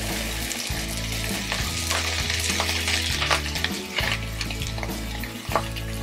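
Chopped onions, garlic, ginger, green chilies and coriander sizzling in hot oil in a non-stick pan, stirred with a silicone spatula, with a steady hiss and short scrapes of the spatula.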